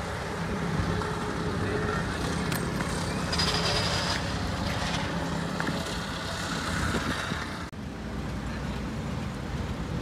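Engines of road-paving machinery running steadily, with a brief scraping rasp about three and a half seconds in. The sound changes abruptly near the end to a different steady engine hum.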